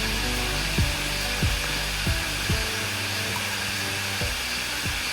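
Background music with held bass notes and a few drum hits, over a steady high buzzing drone of cicadas.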